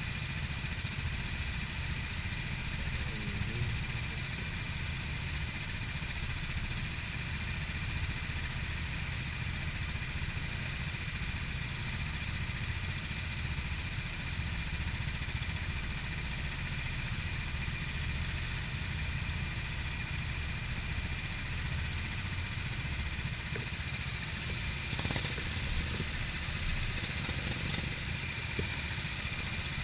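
Go-kart engines idling steadily, the low rumble of the camera's own kart and the karts queued around it, with a steady high tone running above it.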